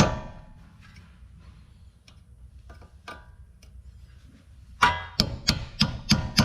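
Rapid hammer blows on metal, about three to four a second, each ringing. They stop just after the start and resume about 5 s in, with a few faint taps between. The hammering is breaking out a front ABS sensor that rust has seized in its mount.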